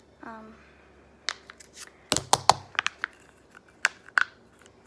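Sticky slime being pulled out of its plastic tub by hand, giving a run of sharp clicks and crackles, loudest about two seconds in.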